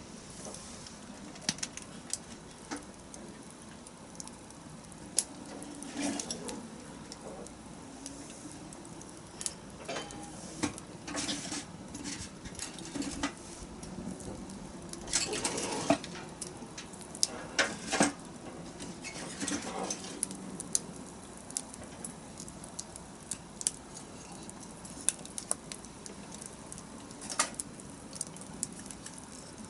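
Wood campfire crackling, with sharp pops at irregular intervals and a few second-long noisier surges, the loudest about halfway through.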